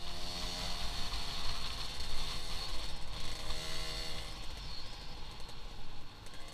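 Yamaha DT 125 two-stroke single-cylinder motorcycle engine running under way at a fairly steady pitch, with wind rushing over the helmet-mounted camera.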